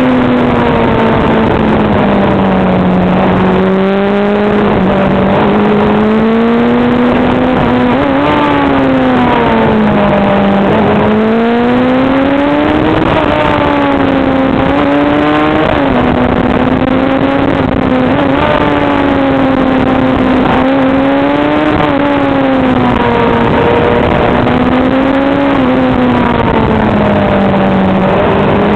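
Motorcycle engine heard onboard at speed, its pitch climbing and falling again and again as the rider accelerates out of bends and eases off into them, with a few sharp drops. A steady rush of wind runs under it.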